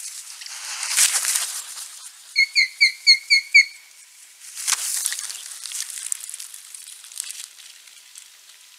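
Osprey giving a quick series of six short, sharp whistled calls, set between two rushing swells of noise, one about a second in and one past the middle.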